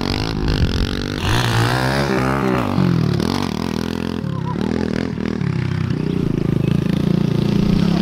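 Kawasaki KLX110L pit bike's small single-cylinder four-stroke engine being ridden hard, its pitch swooping up and down with the throttle in the first few seconds, then running steadier near the end.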